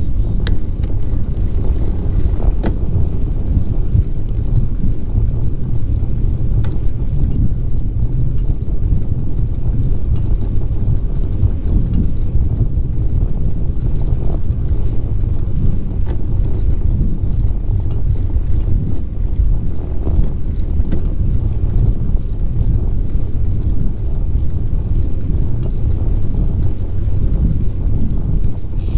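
Wind buffeting the microphone of a camera riding along on a bicycle: a steady, loud low rumble, with a few faint ticks.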